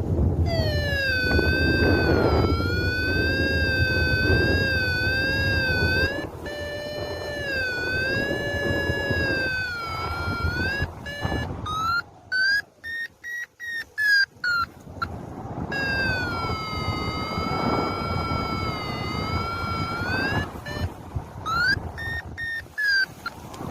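Paragliding variometer sounding over wind rushing on the microphone: a long wavering tone, which marks sinking air, broken in the middle by a run of quick short beeps, which mark a brief climb, before the wavering tone returns.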